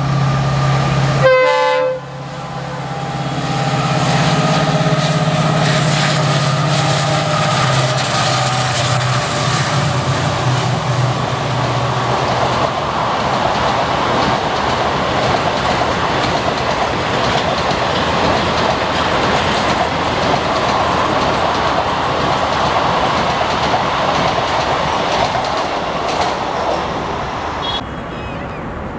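Indian Railways diesel locomotive sounding a short horn blast, then its engine running with a steady low drone as it approaches. From about twelve seconds in, the loud rumble and clatter of passenger coaches rolling past on the rails takes over.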